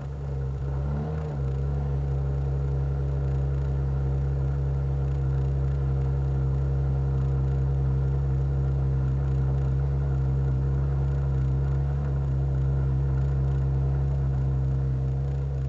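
Porsche flat-six engine idling steadily, after a short blip of the throttle about a second in.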